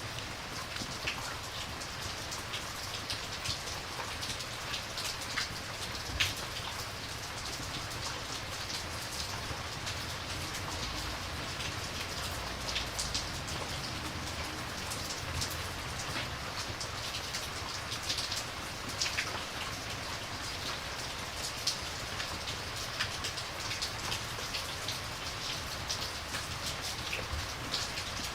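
Steady rain, with many short sharp ticks scattered through it.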